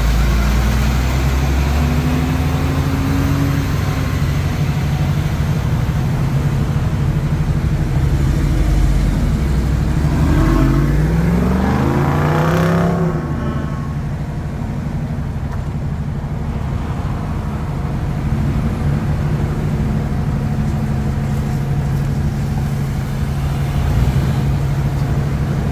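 Motor vehicle engines idling steadily. About halfway through, one engine revs up for a couple of seconds in a rising pitch.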